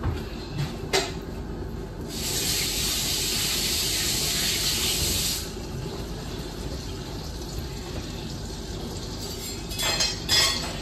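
Water running from a kitchen tap for about three seconds, turned on and off abruptly. A few short knocks near the end.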